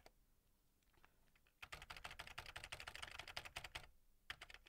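Computer keyboard typed on quickly: a fast run of keystrokes starts about a second and a half in and lasts about two seconds, followed by a few more taps near the end.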